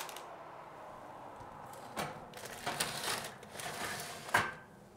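A metal baking tray of pasties being put into an oven: a click about two seconds in, a short rattle of clicks as the tray goes in, and a sharp clunk near the end as the oven door shuts.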